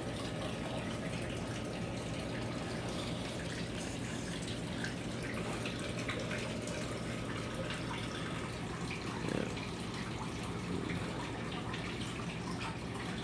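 A steady low hum under an even background hiss, with faint scattered clicks and light handling noises and one slightly louder bump about nine seconds in.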